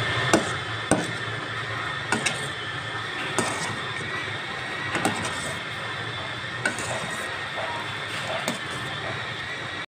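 Foaming mixture sizzling in a non-stick frying pan while a spatula stirs it, scraping and knocking against the pan several times. A faint steady high whine runs underneath.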